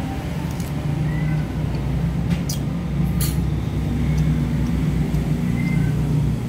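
A low, steady engine rumble with a few brief clicks about halfway through.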